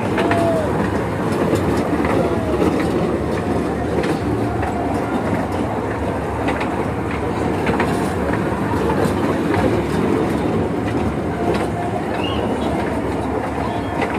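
Children's mini train amusement ride running round its circular metal track: a steady rumble and clatter of the small wheels on the rails, with scattered light clicks.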